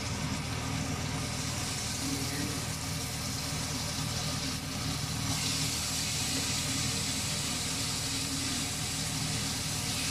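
Raw chicken pieces sizzling in hot oil with onion and ginger in a cooking pot, searing unstirred just after going in; the sizzle grows louder about five seconds in, over a steady low hum.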